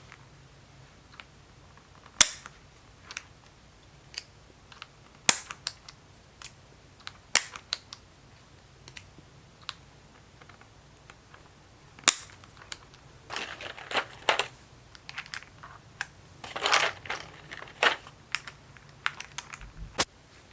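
Sharp plastic clicks and clacks from a mechanical keyboard being worked on, coming irregularly, one every second or two, with a couple of short rattling flurries in the second half.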